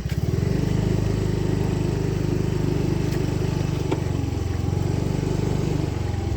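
Small motor scooter engine running steadily under way, heard from the rider's seat. It picks up slightly about half a second in and eases off a little near the end, with a couple of faint clicks.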